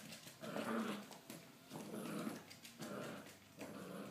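Three-month-old Staffordshire bull terrier–miniature Australian shepherd mix puppy growling in short bouts, about one a second, while it carries a rubber ring toy in its mouth. Light clicks can be heard between the growls.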